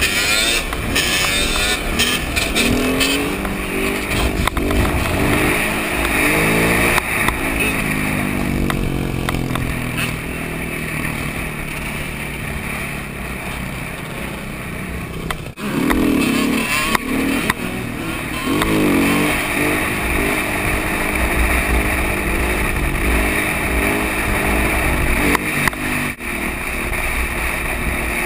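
Dirt bike engine heard from the rider's helmet, revving up through the gears in repeated rising pulls, with a sudden drop as the throttle closes about fifteen seconds in. Wind rushes over the microphone throughout.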